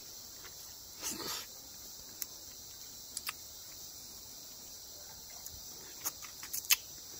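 Mouth sounds of eating a peeled yellow rambutan: a wet slurp about a second in, a few single clicks, then a cluster of lip-smacks and sucks near the end as the flesh is sucked and scraped off the seed. A steady high insect chorus, like crickets, runs underneath.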